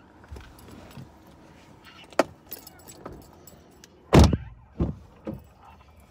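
A parked car's driver's door opened and someone climbing out: a sharp click about two seconds in, then a loud thump just after four seconds and two smaller knocks soon after.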